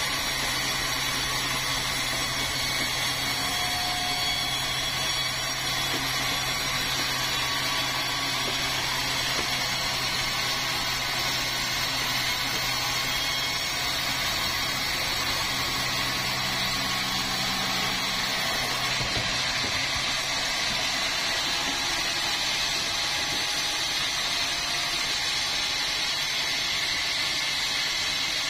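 Power saw cutting through a red meranti log: a steady, continuous machine noise with a low hum that drops away about two-thirds of the way through.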